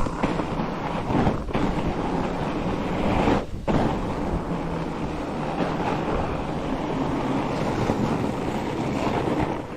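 Fat bike tyres crunching steadily over frozen, groomed snow, with wind rushing over the microphone; the noise dips briefly about three and a half seconds in.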